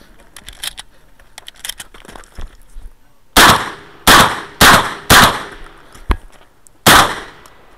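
Light clicks and rattles of a shotgun being handled and loaded for about three seconds, then five loud shotgun shots: four in quick succession about half a second apart, and a fifth almost two seconds later.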